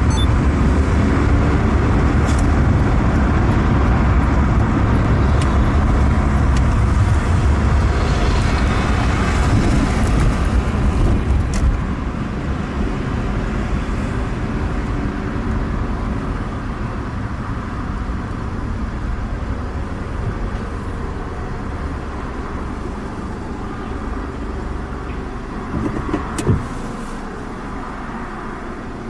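Car running, heard from inside the cabin: a steady low rumble that drops a little about twelve seconds in, with a single sharp knock near the end.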